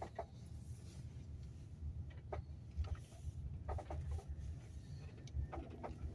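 Car driving, heard from inside the cabin as a steady low rumble of road and engine noise, with a few short high chirps scattered through it.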